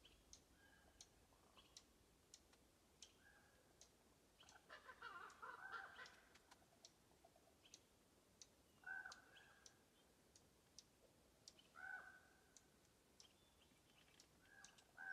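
Near silence: faint scattered clicks and a few short bird calls, the longest about five seconds in.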